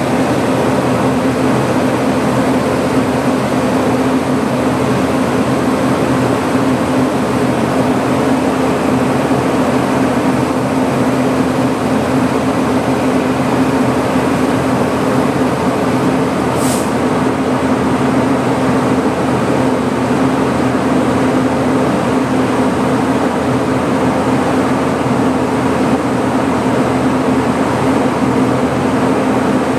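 Stationary locomotive with its machinery running, heard from beneath the underframe: a loud, steady hum under an even hiss. A brief sharp, high sound comes a little past halfway.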